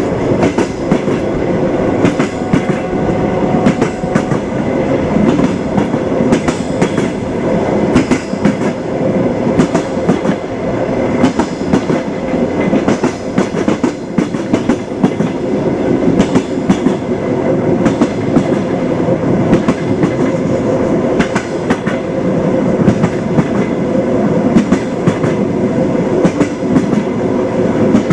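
Railway carriage running along the track with a steady rumble and frequent clicks of the wheels over the rails, the clickety-clack of train wheels.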